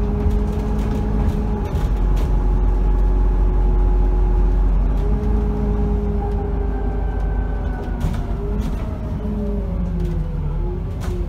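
Alexander Dennis Enviro 400 double-decker bus heard from inside the passenger cabin while under way: a low engine and road rumble with a steady drivetrain whine. The whine drops in pitch about two seconds in, climbs back a few seconds later, then falls away in pitch over the last few seconds as the bus slows.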